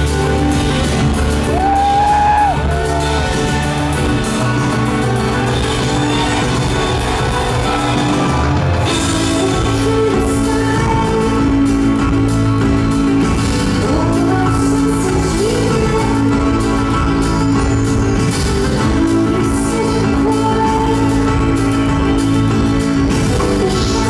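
A live rock band plays: drums, bass and keyboards under a woman's singing voice. The low part of the backing changes about nine seconds in.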